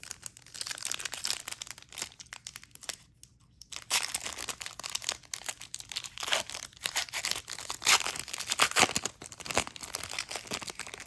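An Upper Deck Marvel Annual trading-card pack wrapper being torn open and crinkled by hand: a run of dense crackling with a brief pause about three seconds in, then busier crinkling.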